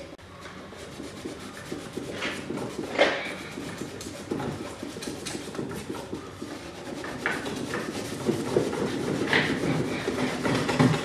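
Gray Scotch-Brite abrasive pad scrubbed by hand over a Ford F-150's steel tailgate, an uneven back-and-forth rubbing with a few sharper scrapes. It is scuffing the edges and corners around the handle and trim so the paint and clear will not peel.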